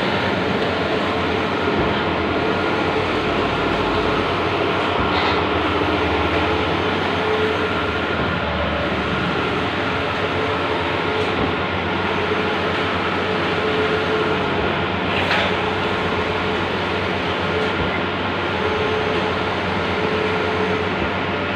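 Large-format outdoor banner printer running: a steady mechanical hum and rush with a faint constant tone, and a brief click twice.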